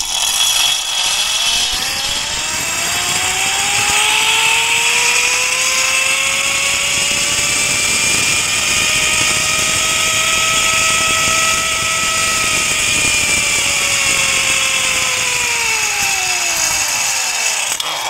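Zipline trolley's pulley wheels running along a steel cable, a whine with a steady hiss. The pitch rises over the first few seconds as the trolley picks up speed, holds, then falls in the last few seconds as it slows toward the landing platform.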